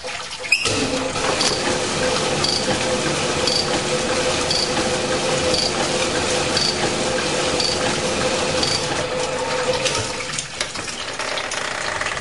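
Cylinder honing machine starting up about half a second in and running with fine honing stones in a steam engine cylinder: a steady mechanical hum with a faint high tick about once a second, easing off slightly near the end.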